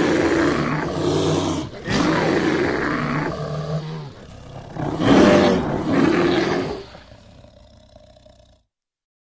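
Bear roaring: three long, low roars, one after another, the last one fading away.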